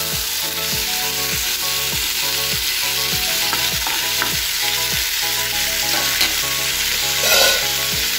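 Raw green mango pieces sizzling in hot oil in a kadai while a metal spatula stirs and scrapes them around the pan. There is a brief louder burst of scraping about seven seconds in.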